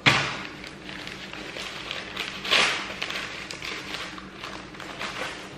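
White paper wrapping rustling and crinkling as a package is torn open by hand, with a loud crackle right at the start and another about two and a half seconds in.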